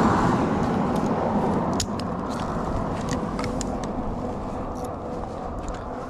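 A motorcycle running, with road and wind noise, growing gradually quieter as it slows.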